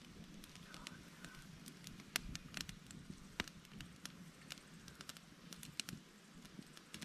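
Small wood campfire crackling faintly, with irregular sharp pops and snaps.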